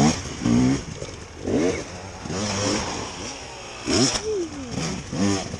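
Enduro dirt bike engines revving in repeated short bursts, the pitch rising and falling about once a second, as a rider works the throttle climbing a steep dirt slope, with other bikes running in the background.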